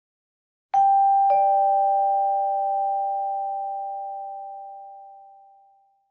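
Vibraphone: two notes struck about half a second apart, the second lower, both ringing on and fading away over about five seconds.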